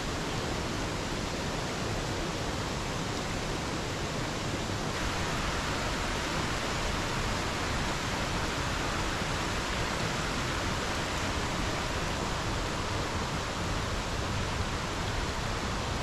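Steady rushing of a mountain stream flowing over rocks, a constant wash of water noise that grows brighter about five seconds in.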